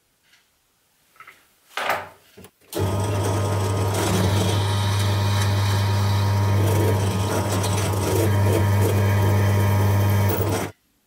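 Bench drill press running as a fine bit drills a small hole in a brass part: a steady motor hum with a hiss of cutting. It starts about three seconds in, after a short scrape, and cuts off suddenly near the end.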